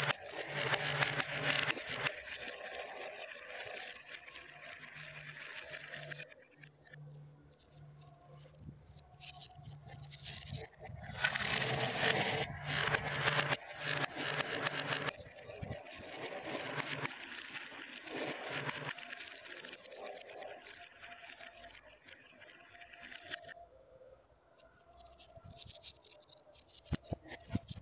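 Glass marbles rolling and clattering through a plastic marble-run track: dense runs of small clicks and rattles, loudest about eleven to thirteen seconds in, with a low steady hum underneath through the first half.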